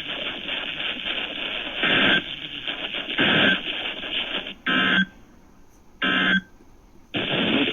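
Weather radio reception hissing with static. About two-thirds of the way in come two short bursts of digital data tone with near silence between them, the EAS/SAME end-of-message code that closes an alert. The static returns near the end.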